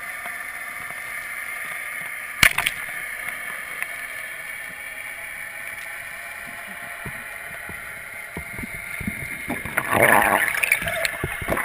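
Underwater ambience picked up by a camera in its housing while freediving over a reef: a steady hiss, one sharp click about two and a half seconds in, and a louder burst of water noise near the end.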